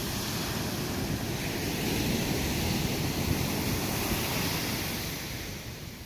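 Ocean surf: a wave's rush of noise builds and then fades near the end, with gusts of wind rumbling on the microphone.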